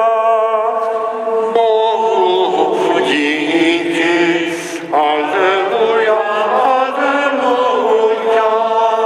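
Sung liturgical chant: singing voices holding long, wavering notes that change pitch slowly. This is the closing chant of the Easter Sunday Mass.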